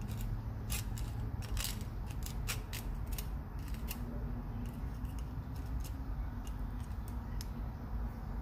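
Compass needle point scratching an outline into the surface of a knife-handle scale: a run of short scrapes and clicks, thickest in the first half, over a steady low hum.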